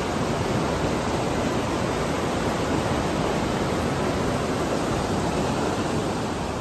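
Steady rushing water, full and even, with no rhythm or distinct events; it starts suddenly.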